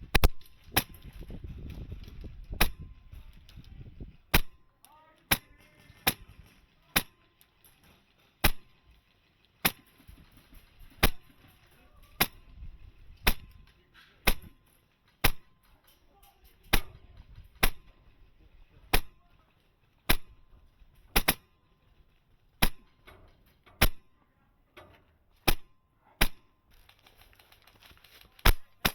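Wolverine MTW HPA airsoft M4 firing single shots, a sharp crack roughly once a second at uneven spacing, about two dozen in all. Low rustling of movement in the first four seconds.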